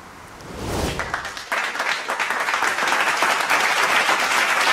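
Applause from many people clapping, swelling over about the first second and a half and then holding steady.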